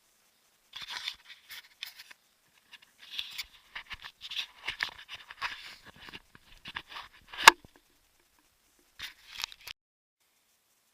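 Irregular bursts of rustling, crunching and scraping, with one sharp click about seven and a half seconds in.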